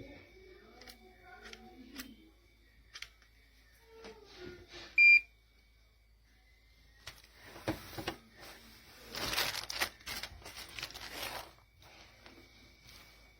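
A single short, loud electronic beep from a digital clamp meter about five seconds in. Several seconds of rustling handling noise follow.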